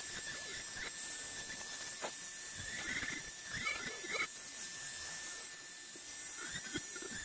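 High-speed rotary carving tool whining steadily, its pitch dipping and recovering in short glides as the bit cuts into maple wood, with light scraping clicks.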